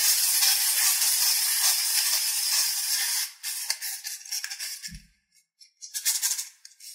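Plastic wind-up toy's clockwork mechanism buzzing for about three seconds, then stopping. Scattered clicks and a soft bump follow as the toy and its winding key are handled.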